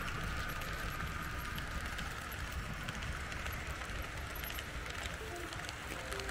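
Märklin H0 model passenger train running along the layout track: a steady rumble of wheels on rail with light clicking, and a higher whine that fades over the first second.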